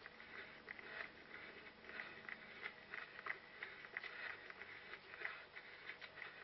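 A runner's footsteps crunching over rough ground and vegetation, picked up by a head-mounted GoPro: a quick, uneven run of soft crunching steps, a few a second.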